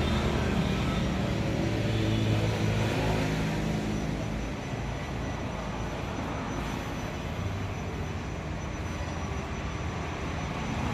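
Kubota L3001 tractor's diesel engine idling steadily, growing fainter after about four seconds.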